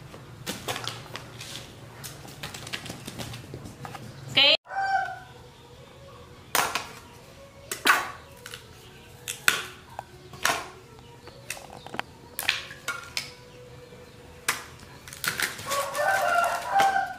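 A cleaver chopping and shaving pieces off a hard green fruit held in the hand, in a run of short sharp knocks. Chickens cluck and a rooster crows in the background, clearest near the end. About four seconds in, a brief high squeal cuts off abruptly.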